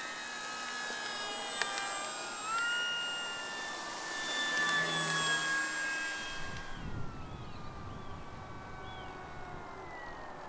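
Electric motor and propeller of a Durafly Slow Poke RC plane whining in flight. The pitch rises briefly about two and a half seconds in, then falls steadily over the last few seconds.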